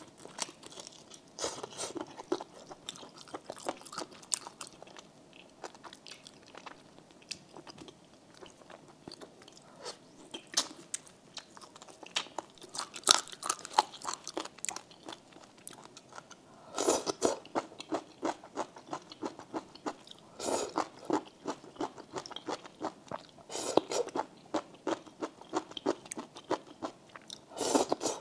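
Close-miked mouth sounds of eating spicy snail noodles and chicken feet: steady wet chewing and crunching with many small clicks, broken by about five louder slurps spread through.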